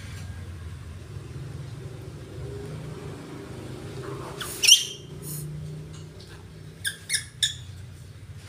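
A young macaque gives a loud, high-pitched squeal about halfway through, then three short, sharp calls near the end, over a low steady hum.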